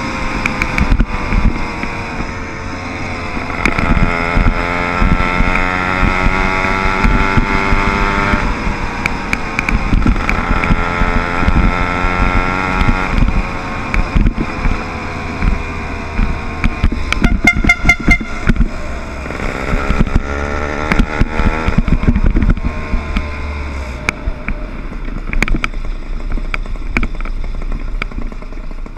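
Small 60/80cc motor-bike engine running under way, its pitch rising and falling as the rider speeds up and eases off, with frequent sharp knocks and a quick burst of rattling about two-thirds of the way through. Toward the end the engine drops to a lower, quieter note.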